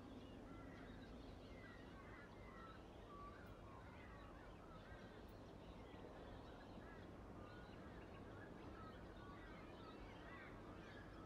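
Near silence with faint birds chirping, many short calls scattered throughout, over a steady low room hum.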